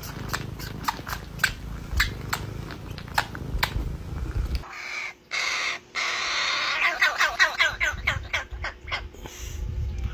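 Fledgling crow begging with its beak wide open as it is fed: a rapid string of harsh, rasping calls in the second half. Before it, a run of sharp clicks over a low rumble.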